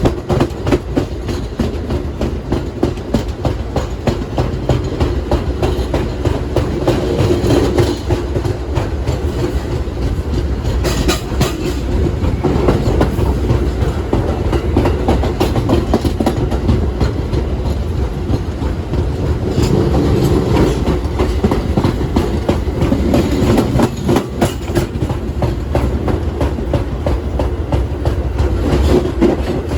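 R160B subway train running between stations: steady rumble from the wheels, with a fast clatter of wheels over rail joints.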